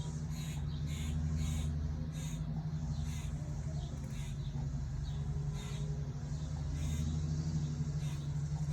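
Small birds chirping in short, high, repeated calls, one or two a second, over a steady low hum.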